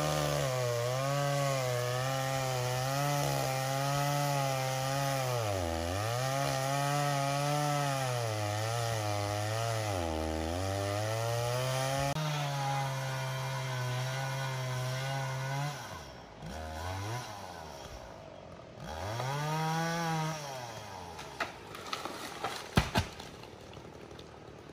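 Gas chainsaw cutting wood at high revs, its pitch sagging twice during the cut. About two-thirds of the way in the throttle is let off, then comes one brief rev and a few sharp knocks near the end.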